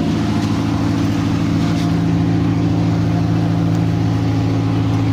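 40 kVA generator set running steadily at a constant speed, its engine giving an even, unchanging note.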